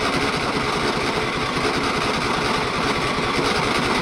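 John Deere L120 riding mower's Briggs & Stratton OHV engine running steadily just after starting, with a newly fitted fuel pump on an engine that had been starving for fuel.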